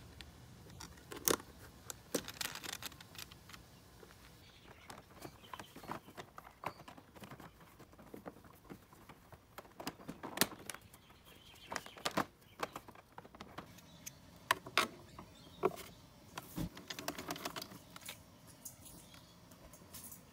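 Scattered clicks, taps and plastic knocks of hand reassembly on a Honda Elite 50 scooter: the battery strap and plastic body panels being fitted back by hand. A few sharper clicks stand out among the softer handling noise.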